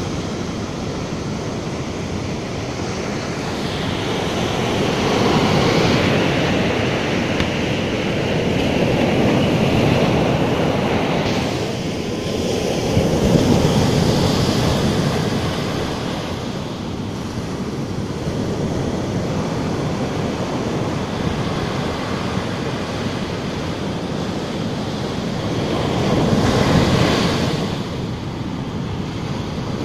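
Sea surf breaking on a sandy beach, the water rushing up the sand and draining back (swash and backwash) in a continuous wash. It swells as each wave breaks, several times, loudest about halfway through.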